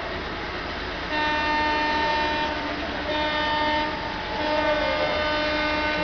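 Air horn of an ALCO WDG3A diesel locomotive sounding three blasts, the first starting about a second in and the last still going at the end, over a steady low rumble.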